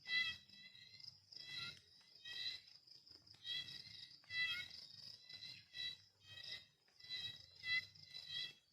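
Repeated short, high chirping calls, roughly one a second, over a faint steady high-pitched insect drone.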